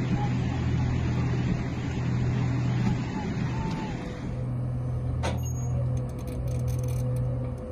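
A dark, ominous music bed holds a steady low drone throughout. Over the first half a dense rushing wash of floodwater lies on top of it, and it cuts off about four seconds in. After that only the drone and a faint held higher tone remain, with a single sharp click a little after five seconds.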